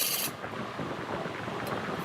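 Large wood lathe turning a redwood log. A bright cutting hiss from the tool on the wood stops about a quarter second in, leaving the lower rumble of the machine and the spinning log.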